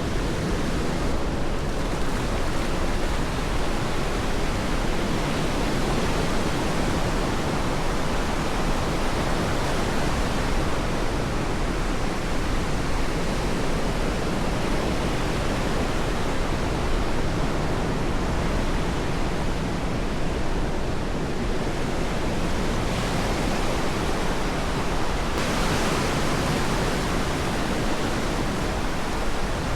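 Ocean surf washing onto a sandy beach: a steady, even rush of breaking waves, a little hissier near the end.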